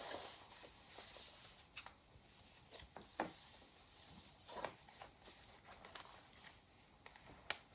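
Faint rustling and a few light ticks of paper cards and letters being handled, at irregular moments.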